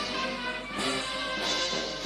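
Brass band music, loud sustained chords with fresh attacks about a second in and again half a second later.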